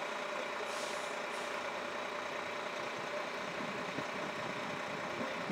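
Volvo FM fire truck's diesel engine idling steadily.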